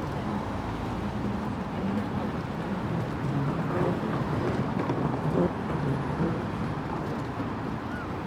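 City street ambience: light road traffic passing steadily, a little louder in the middle.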